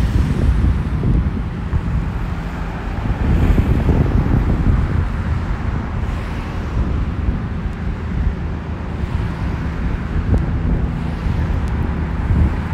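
Wind gusting on the microphone, a low uneven rumble, over the steady hiss of road traffic going by.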